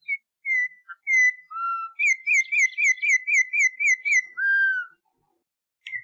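A songbird singing clear whistled notes. A quick run of about nine rising-and-falling notes, about four a second, follows, and the phrase ends in one longer, lower whistle.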